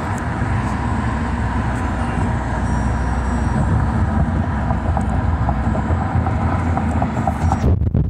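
Steady road and wind noise of a car driving at freeway speed: a loud low rumble with a hiss over it, cutting off suddenly shortly before the end.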